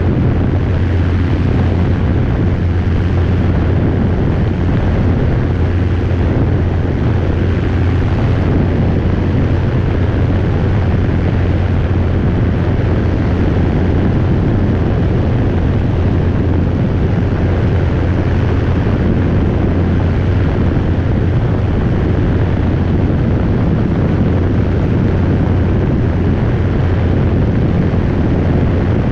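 Robinson R22 helicopter in steady flight, heard from on board: the engine and rotor make a constant low drone, unchanging throughout.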